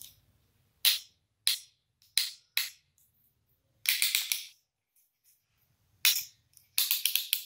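Hand crimping pliers clicking as their handles are squeezed shut on copper wire-joining sleeves: a few single sharp clicks, then a quick run of clicks about four seconds in and another near the end.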